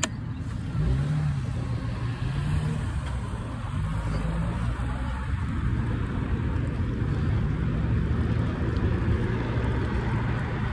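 Steady low rumble of wind on the microphone and passing road traffic while riding a bicycle along a roadside path, with a vehicle's engine wavering in pitch from about a second in.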